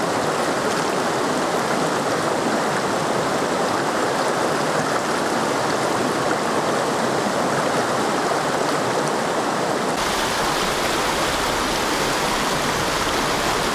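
A rocky mountain trout stream rushing over a riffle: a steady wash of running water. About ten seconds in, the rushing abruptly becomes fuller and deeper.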